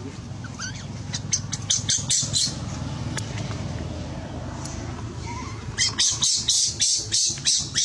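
Baby macaque screaming in rapid, high-pitched shrieks as an adult grabs and pulls it by the arm: a distress cry. There is a short flurry of shrieks about a second in and a longer run of about ten from about six seconds in.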